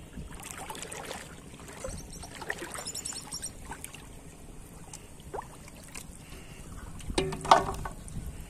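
Shallow water sloshing and splashing as hands work a plastic-bottle fish trap in the water. About seven seconds in comes a brief, louder sound with a clear pitch.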